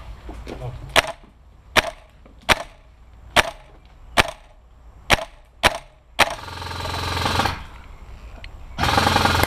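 Airsoft gun firing: eight single sharp shots about one a second, then a full-auto burst that rises over about a second, and a louder rapid full-auto burst near the end.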